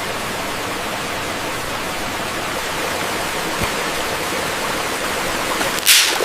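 Steady rushing of running water, with a brief louder hiss near the end.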